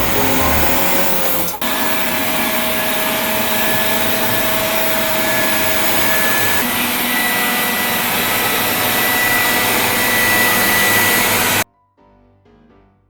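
MGTec Twinboss robot vacuum cleaner running its suction fan: a loud, steady rushing noise with a thin high whine, briefly dipping about a second and a half in. It cuts off suddenly near the end, leaving faint piano music.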